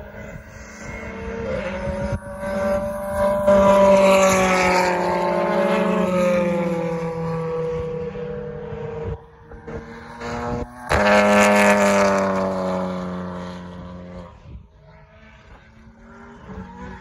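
BTCC touring cars' turbocharged 2.0-litre four-cylinder engines at high revs as cars pass one after another. Each engine note swells loud and then falls in pitch as the car goes by. About eleven seconds in there is a sharp pop, then a second loud pass that fades away near the end.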